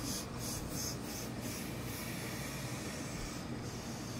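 A heavy tailor's iron pressed and slid over wool trouser cloth on a padded table: a few quick rubbing strokes in the first second and a half, then a steady rubbing noise.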